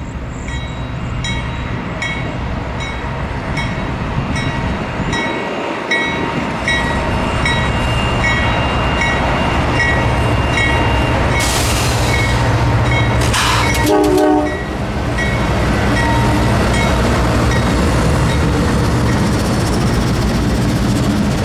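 Grade-crossing bell dinging steadily about twice a second while a Norfolk Southern freight train's diesel locomotives approach and pass, their low rumble growing louder. About fourteen seconds in comes a loud rush of noise with a brief horn note.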